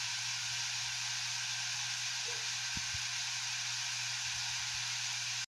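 Electric fans running with a steady airy hiss and a low motor hum, heard from a fan video playing on a phone. The sound cuts off suddenly about five and a half seconds in, as that video ends.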